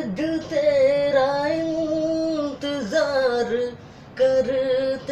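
A man singing a Hindi film love song unaccompanied, in a high voice, with long held, wavering notes. He takes a short breath a little before the 4-second mark, then goes on.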